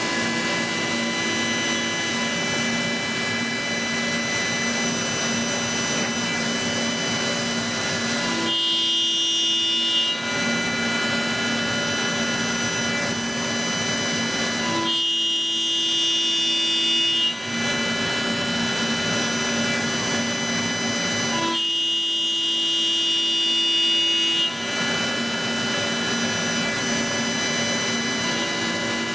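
CNC machine tool running, a steady whine made of several fixed tones whose pitch set changes suddenly three times, as the spindle speed or the machining operation changes.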